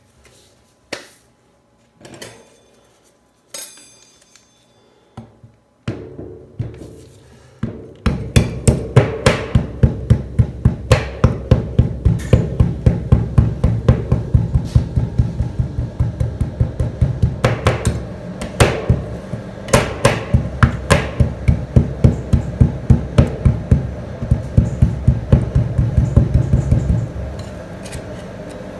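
Two steel scrapers chopping a chocolate bar into ice cream base on a frozen steel cold-plate pan, metal striking metal through the chocolate. A few separate taps at first, then from about eight seconds in a rapid, steady run of chopping strikes, several a second.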